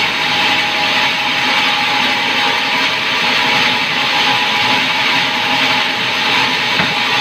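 Power saw running steadily while cutting a pine board, a constant loud whine-and-hiss with no pauses.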